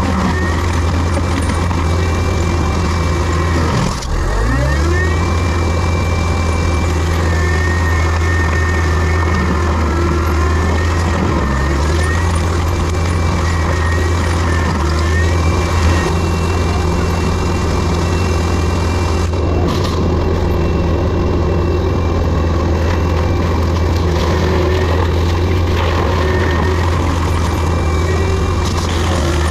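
Heavy land-clearing machine's diesel engine running steadily under load, with a high whine that rises and falls above it. About four seconds in the engine briefly drops in pitch, as if lugging, then recovers.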